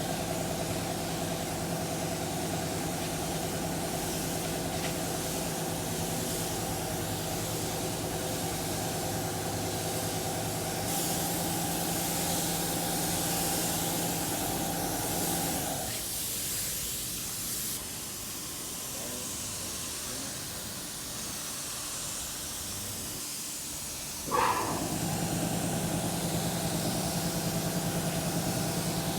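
A motorised body-shop tool runs with a steady hum, then stops about halfway through while a hiss of air carries on. Near the end it spins back up with a short rising whine and runs steadily again.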